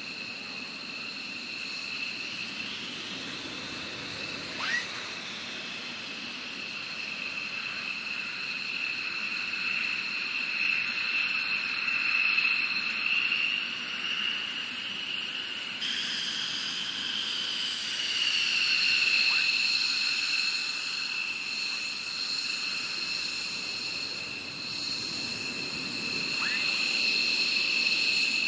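F-15E Strike Eagle's twin turbofan engines whining at taxi power: two steady high-pitched tones that waver slightly over a rushing hiss, swelling gently a few times as the jet moves. Three brief rising squeaks are heard, at about five, nineteen and twenty-six seconds in.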